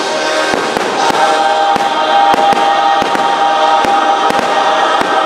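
Aerial firework shells bursting in quick succession, several sharp bangs a second. The show's music, with held chords, plays loudly underneath.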